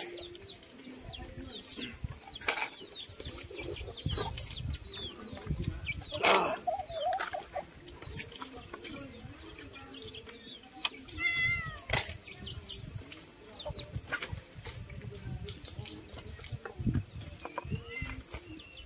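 A chicken calling, with one loud squawk about eleven seconds in and smaller clucking calls earlier, amid several sharp knocks and handling noise.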